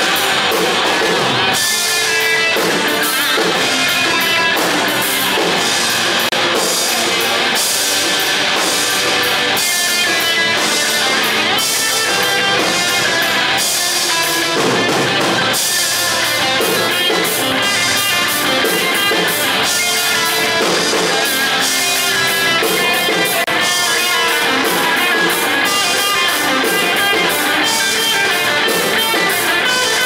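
Live instrumental heavy-metal-style band playing: electric guitar, electric bass and a drum kit together, with cymbals struck in a steady rhythm.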